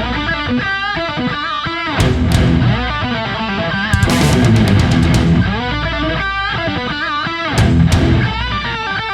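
Background music: a rock tune led by electric guitar, with bending lead notes over bass and drums.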